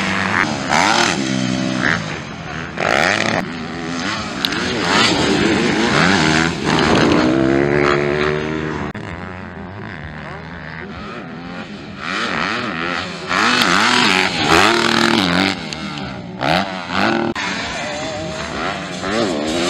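Motocross dirt bike engines revving hard, the pitch rising and falling again and again as the riders open and close the throttle around the track and over the jumps.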